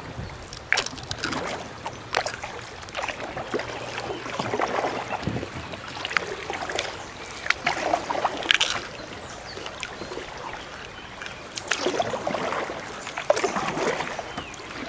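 River water rippling and splashing around a kayak moving through a shallow riffle, with scattered small splashes and knocks.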